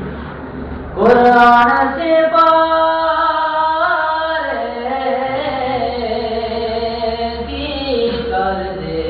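A solo voice singing without instruments, holding long notes that slide up and down in pitch, loud from about a second in, over a steady low hum.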